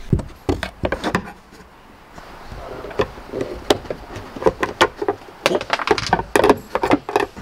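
A pry tool working a plastic trim clip on a van's headliner: a string of sharp clicks, taps and knocks of the tool against hard plastic, in a burst at the start and again from about three seconds in.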